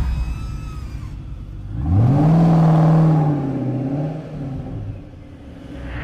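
Car engine revving: the pitch climbs sharply about two seconds in, holds for a second or so, then drops away as the revs fall.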